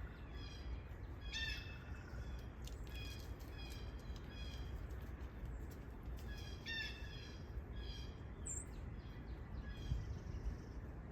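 A bird calling over and over in short, even calls, roughly one or two a second, over a steady low rumble of background noise.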